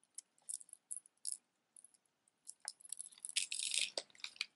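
Costume jewelry clicking and rattling as a faux pearl bead and metal chain necklace is handled and set down. It starts as scattered light clicks and becomes a busier jangle about two and a half seconds in.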